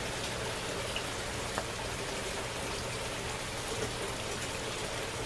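Steady hiss of water, even and unbroken, with a faint low hum underneath and one light tick about a second and a half in.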